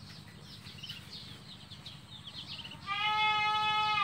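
A long animal call with a steady pitch, held for about a second, starts about three seconds in. Faint high chirping runs throughout.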